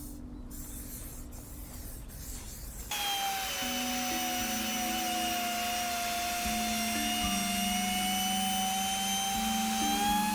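A high-speed electric power tool starts abruptly about three seconds in and runs with a steady high whine whose pitch sags slightly under load. Soft background music with held notes plays underneath.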